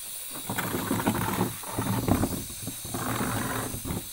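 Chicken karahi sizzling in a metal pot with a steady hiss, under louder, irregular noise that rises and falls through the middle.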